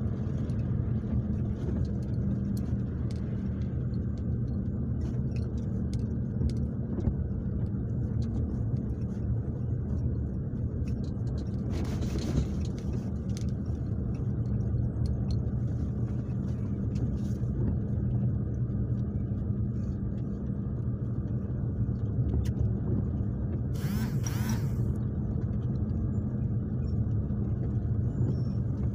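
Steady low engine and road rumble of a car driving on wet roads, heard from inside the cabin. Two short bursts of hiss cut through, about twelve seconds in and again near the end.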